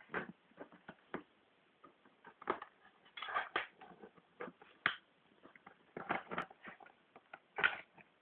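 Black dog snuffling close to the microphone, in short irregular bursts with a few sharp clicks in between.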